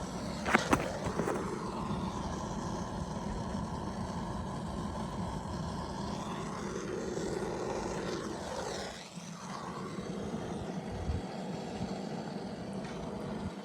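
Handheld torch flame blowing with a steady jet-like hiss as it lights a campfire, with a few sharp clicks about half a second in and a brief drop near nine seconds.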